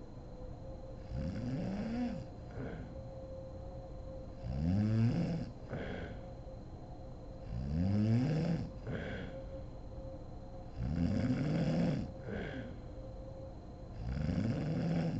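A sleeping woman snoring in a steady rhythm: five pitched snores, about one every three seconds, each rising then falling in pitch over about a second, and each followed by a short breathy exhale.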